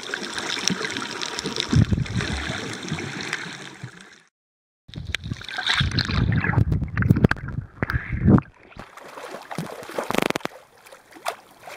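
Water gurgling and sloshing around a camera held underwater in shallow sea, in uneven bursts, with a sharp splash as it breaks the surface near the end.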